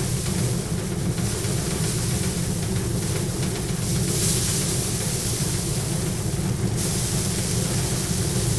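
Paddy threshing machine running steadily: a constant low hum from the spinning drum, with a hiss that swells and fades as bundles of rice straw are pressed against it to strip the grain.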